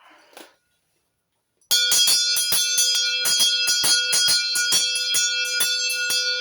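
A large bell shaken so its clapper strikes about four times a second, giving a loud ringing note of B4 with bright high overtones. The ringing starts after a second and a half of quiet.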